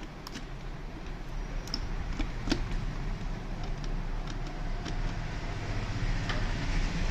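A few separate light clicks and knocks of plastic printer parts being handled and fitted together, the sharpest about two and a half seconds in, over a steady low hum.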